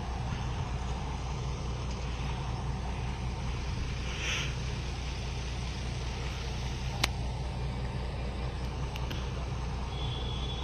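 Diesel tractor engine running steadily at idle, a low even drone. A single sharp click about seven seconds in.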